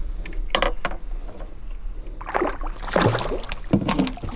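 Water splashing and sloshing beside a small boat as a hooked fish is brought alongside and a landing net is dipped into the water. Short wordless vocal sounds come in the second half.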